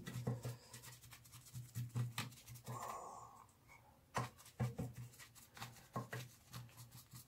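Foam brush dabbing and rubbing wet wood stain into a carved wooden surface: faint, irregular soft taps and scrapes.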